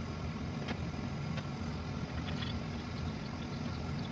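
Water draining out of a Rheem tankless water heater through its service valve and hose into a bucket: a steady low rumbling flow with a few faint ticks.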